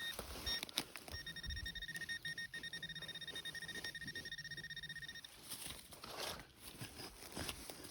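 Minelab Equinox 800 metal detector's target tone: two short beeps, then a steady high tone for about four seconds, the detector signalling a buried metal target.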